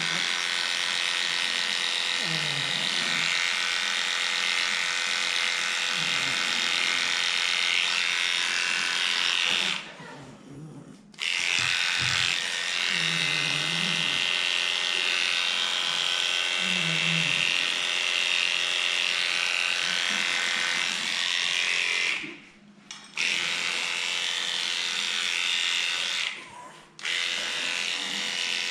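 Electric dog-grooming clippers running steadily with a high whine, stopping briefly three times: about ten seconds in, past twenty seconds in, and shortly before the end.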